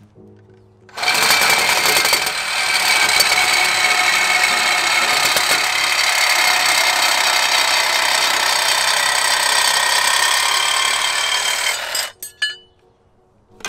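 Cordless grinder grinding down the metal of a brake rotor's centre, a loud, steady, high-pitched grind that starts about a second in and stops near the end, followed by a few short clicks.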